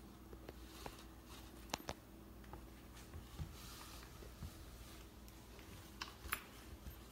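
Faint scratchy rustling of a cat rubbing its face against a wall-mounted plastic-bristle self-groomer, with a few sharp little clicks, two close together about two seconds in and a couple more near the end, over a faint steady hum.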